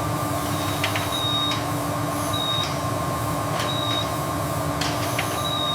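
Factory machinery running with a steady hum and rumble, four short high beeps spaced about a second and a half apart, and a few sharp clicks.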